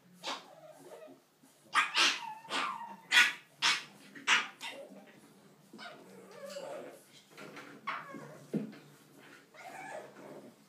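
English bulldog puppies play-fighting, giving short, high yips and barks, with a quick run of loud ones about two to four seconds in, then quieter, scattered sounds.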